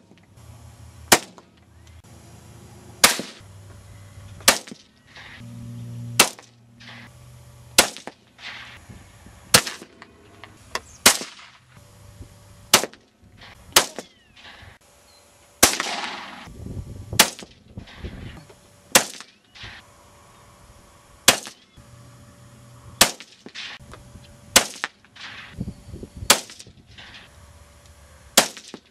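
Ruger 77/17 rifle firing .17 HMR rounds: a series of about seventeen sharp rifle cracks, one every second and a half to two seconds, some trailing a short echo.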